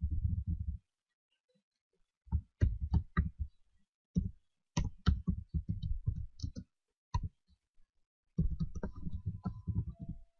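Computer keyboard typing: quick runs of keystrokes, broken by short pauses.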